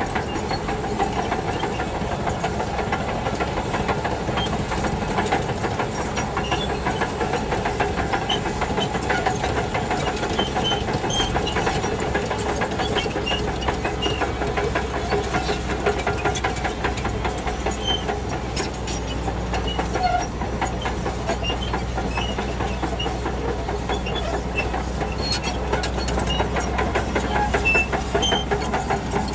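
Shantui DH17C2 crawler bulldozer working: its diesel engine running steadily under load, with the rapid clatter and squeak of its steel tracks. A deeper engine drone comes in from about halfway through.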